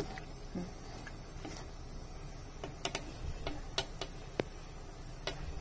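Pot of snap peas simmering on the stove, with light, irregular clicks and taps from the cookware, most of them in the middle, over a low steady hum.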